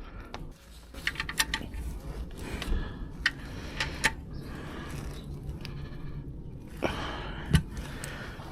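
Scattered light clicks and knocks of objects being handled, over a low steady rumble.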